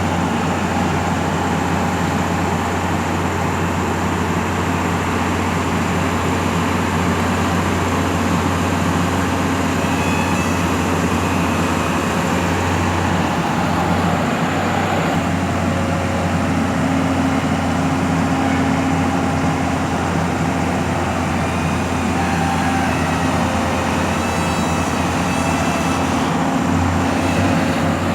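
Mobile crane's engine running steadily, a continuous low drone.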